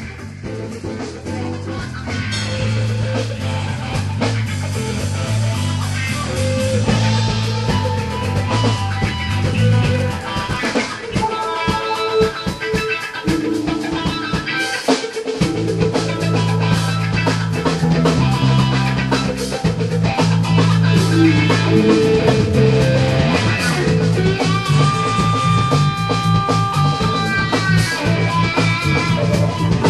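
Rock music with guitar, drum kit and a bass line. The bass drops out for a few seconds midway, then comes back in.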